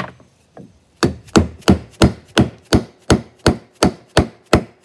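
A mallet beating on a wooden block laid over a glued bow tie inlay, driving the inlay down into its recess. After a couple of light taps, a steady series of about a dozen even blows, nearly three a second, starts about a second in.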